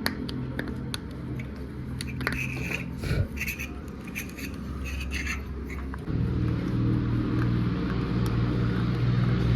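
Steady low mechanical hum, with sharp clicks and short scrapes of small metal parts being handled through the first half. The hum grows louder about six seconds in.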